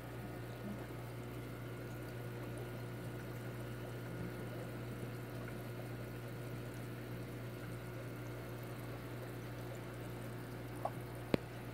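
Steady bubbling and trickling of aquarium water from the tank's filtration over a low, even equipment hum, with two light clicks near the end.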